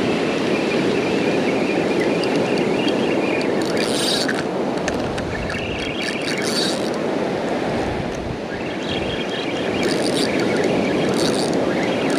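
Steady surf and wind on the beach, with a spinning fishing reel cranked in several short spurts of whirring as a hooked fish is reeled in.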